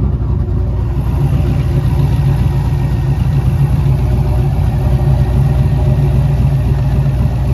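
LSX V8 engine idling steadily, with a deep, even rumble.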